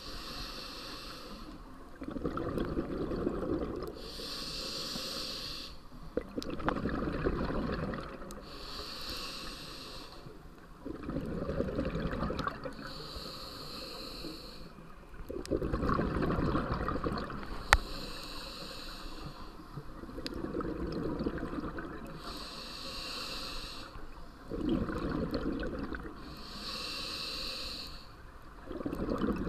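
Scuba regulator breathing: a short hiss on each inhale, then a longer bubbling rumble of exhaled air, about one breath every four to five seconds. There is one sharp click about two-thirds of the way through.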